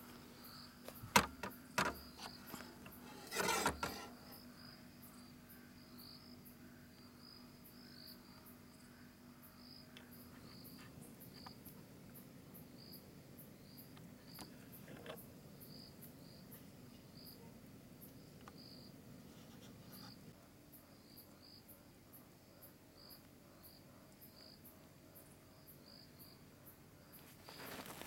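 Insects chirping: a steady run of short, high chirps, more than one a second. In the first four seconds there are a few sharp knocks and a brief rustle, louder than the chirping.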